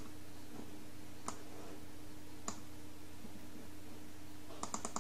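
Computer mouse clicking: a single click about a second in and another a second later, then a quick run of clicks near the end, over a steady faint low hum.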